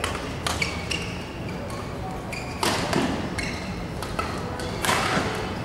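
Badminton rally: the shuttlecock struck by rackets with sharp pops a second or more apart, and shoes squeaking briefly on the court mat between shots.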